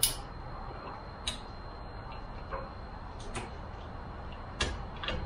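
Irregular sharp clicks and knocks of hard parts being handled at a car's front-trunk hood hinge, where a spring has just been hooked on. The loudest click comes right at the start and another strong one about four and a half seconds in.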